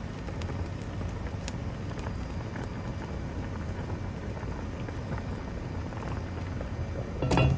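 Chicken wings in a soda-and-soy braising liquid boiling hard in an open enamelled cast-iron pot, a steady bubbling hiss with fine pops. The lid is off after a boil-over. A brief louder sound comes near the end.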